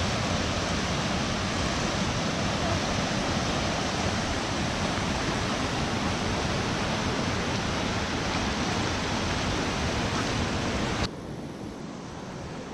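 Water rushing out through the gates of a lock-and-dam structure and churning into white water below: a loud, steady rush. It cuts off suddenly about eleven seconds in, leaving a quieter steady hiss.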